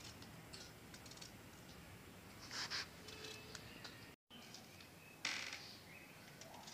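Faint, scattered clicks of a small knife cutting through eggplant, with pieces dropping into a steel bowl. Two short rustling bursts stand out, about two and a half and five seconds in. The sound drops out for an instant just after four seconds.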